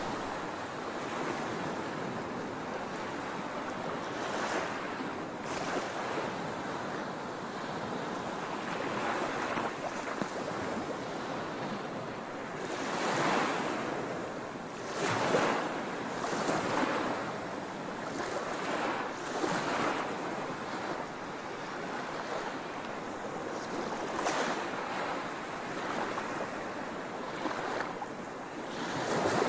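Concrete Genie floor grinder grinding wet concrete to strip an epoxy coating: a steady rushing noise that swells and eases several times.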